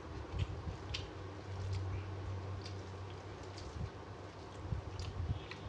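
A person eating rice by hand from a brass plate: fingers kneading rice into mashed pumpkin, with scattered small wet clicks and a few soft low thumps.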